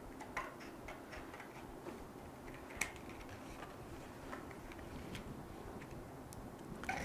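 Scissors snipping through thin card, heard as faint, uneven small clicks, with one sharper snip about three seconds in.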